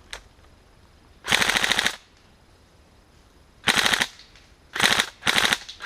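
An airsoft electric gun firing full-auto in short bursts of rapid shots. The first burst, about a second in, is the longest, and three quicker bursts follow close together in the last two seconds.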